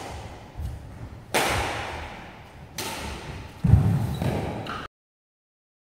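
Badminton rally: sharp racket-on-shuttlecock hits about a second and a half apart and a heavy thud of footwork on the court, echoing in a large sports hall. The sound cuts off suddenly about five seconds in.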